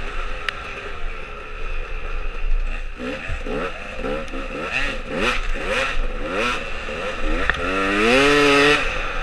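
Dirt bike engine under way, its pitch rising over and over as the rider twists the throttle and shifts through the gears, with one long, loud rev near the end. Wind and ride noise run underneath.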